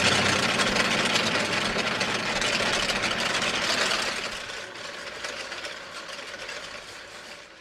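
Hand-spun brass prayer wheels turning on their spindles, a fast rattling mechanical clatter that fades out over the last few seconds.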